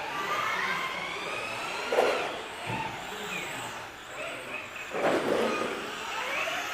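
Electric RC touring cars running, their motors whining and gliding up and down in pitch as they accelerate and slow. There is a short hit about two seconds in and a louder rattle about five seconds in.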